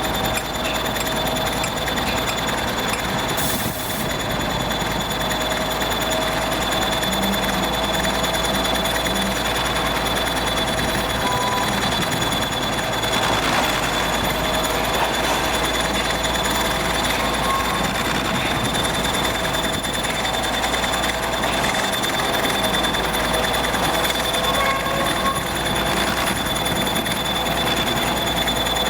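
EO-5111B excavator's pile-driving rig at work: continuous heavy machinery noise with a steady high whine running through it.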